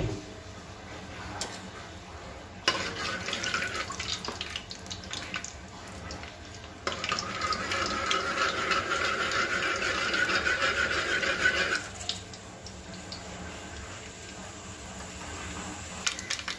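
Mustard seeds sizzling and spluttering in hot oil in an aluminium pot, stirred with a spoon. The sizzle starts a few seconds in, is loudest from about seven to twelve seconds, then dies down.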